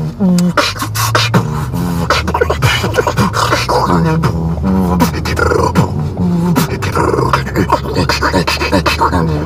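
Beatboxing: one person's mouth drums, sharp kick and snare clicks in a quick steady rhythm, with short hummed bass notes woven between them. A steady low rumble of the moving car runs underneath.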